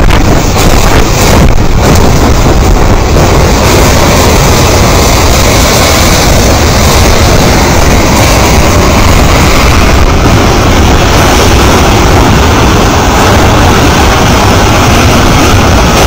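A debris flow of mud and stones moving down a channel: a loud, steady rumble with a heavy low end.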